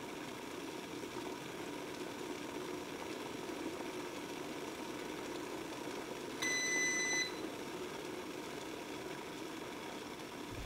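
Electric gooseneck kettle heating water with a steady hiss. About six seconds in comes a single electronic beep just under a second long, the kettle's signal that the water has reached its set temperature.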